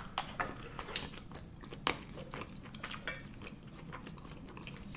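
A person chewing a mouthful of spicy Korean rice cakes (tteokbokki) close to the microphone: irregular soft clicks and smacks of the mouth.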